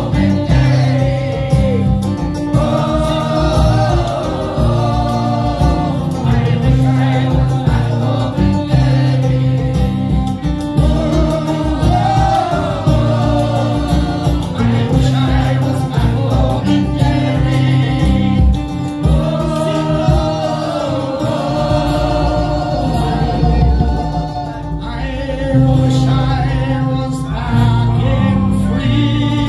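Live folk band in full swing, with acoustic guitar, banjo and bass under the melody, and many voices singing along.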